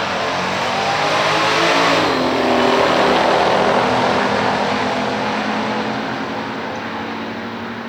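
Muscle car's V8 engine at full throttle going past: it grows louder to a peak about two to three seconds in, drops in pitch, then fades away.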